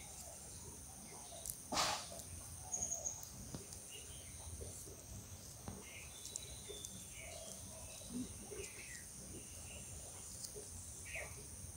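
Faint garden ambience: a steady high insect drone with scattered short bird chirps, and one sharp click about two seconds in.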